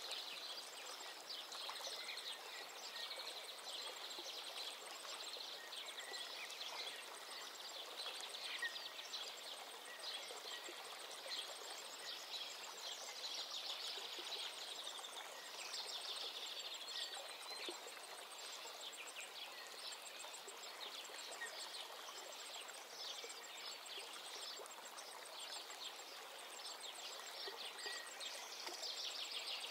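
Mutton pieces frying in hot oil in a pan, a steady sizzle with dense fine crackling.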